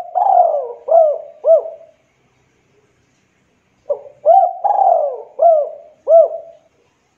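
Spotted dove cooing: two multi-note coo phrases of arched, looping notes. The first ends about two seconds in, and the second starts about four seconds in and runs for nearly three seconds.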